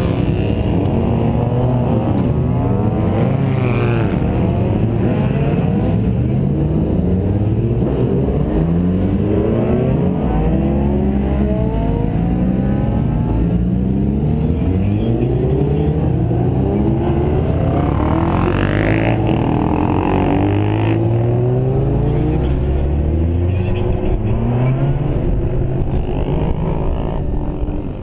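Several sport motorcycles accelerating away one after another, their engines revving up and shifting through the gears, each run rising in pitch and then dropping back.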